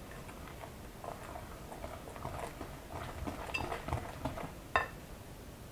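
Hand whisk beating cake batter in a plastic mixing bowl: irregular wet stirring with small clicks and scrapes of the whisk against the bowl, and one sharper knock near the end.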